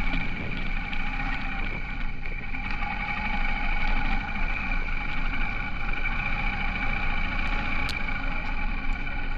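Honda H'ness CB350 single-cylinder motorcycle engine running at a steady speed during a ride, with a low rumble under an even drone.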